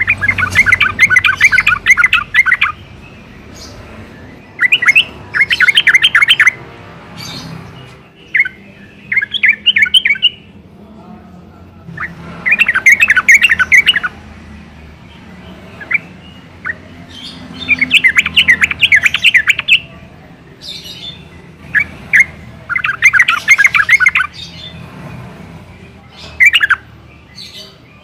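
Yellow-vented bulbul singing: bursts of rapid, bubbling chattering notes, each phrase lasting one to two seconds and repeated every few seconds.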